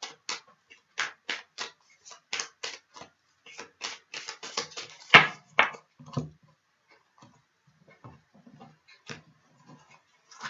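A deck of tarot cards shuffled by hand: a quick run of light card slaps, about three or four a second, with two louder slaps about five seconds in, then only scattered soft taps as the cards are handled.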